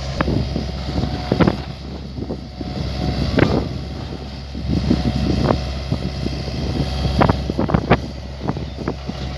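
Mini excavator's diesel engine running steadily, with irregular sharp knocks and clanks from the machine working as it unloads a truck.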